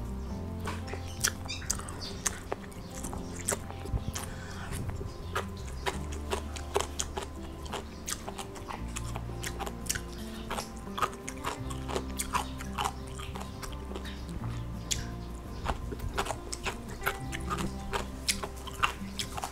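Close-miked chewing and wet mouth clicks as grilled cutlassfish flesh is bitten off its fine bones and eaten, over background music.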